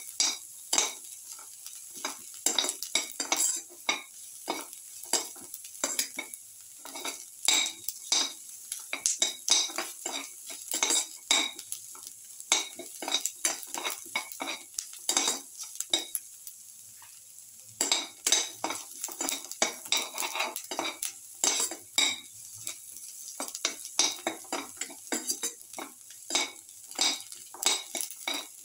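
A metal utensil scraping and clinking against a steel pan in quick, irregular strokes as sliced onions and garlic cloves are stirred in hot oil, over a steady sizzle of frying. The strokes pause briefly a little past halfway, then resume.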